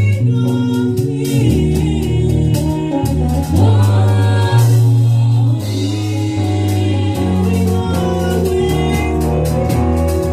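Gospel worship music: a group of voices singing over a band, with a strong bass line and a steady percussion beat.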